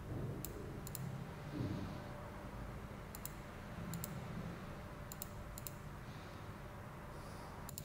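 Computer mouse clicking about seven times at irregular intervals. Several clicks come as quick close pairs, over a low steady background hum.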